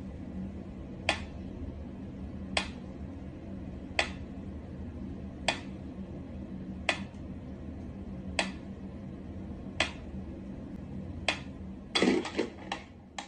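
Mechanical pyramid metronome ticking slowly, one sharp tick about every second and a half, over a steady low hum. Near the end comes a quick flurry of knocks and rustling as a cat startles and jumps back from it.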